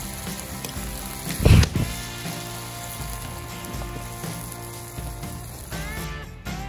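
Food sizzling over a campfire, with a single loud low thump about a second and a half in and faint background music.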